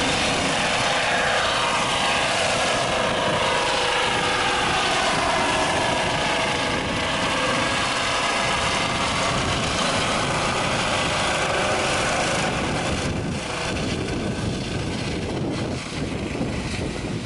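Eurocopter EC135 medical helicopter taking off and climbing away overhead: steady rotor and turbine noise with whining tones that glide down in pitch as it passes, then fading a little over the last few seconds.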